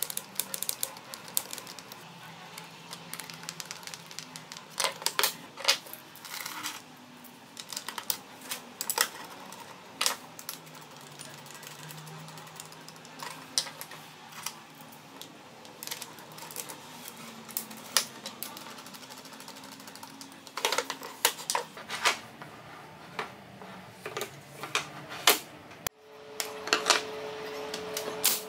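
Hand woodworking at a bench: irregular clicks, taps and knocks of screws being driven by hand and walnut frame parts being handled. A steady hum comes in after a cut near the end.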